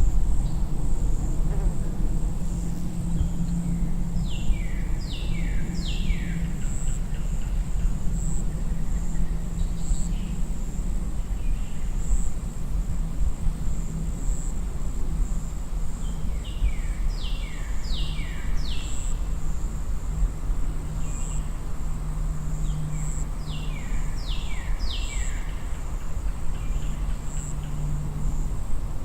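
Daytime summer wildlife ambience: a steady high insect drone, with a bird calling three times in quick runs of three downward-sliding notes. Underneath is a constant low rumble of very distant vehicles.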